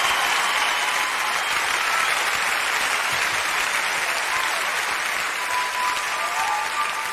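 Large audience applauding in a big hall, a steady dense clapping, with a few thin steady high tones coming in about five and a half seconds in.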